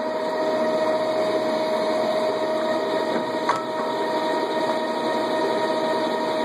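Lodge & Shipley engine lathe running under power with its spindle turning: a steady mechanical running noise with a constant whine, and one short click about three and a half seconds in.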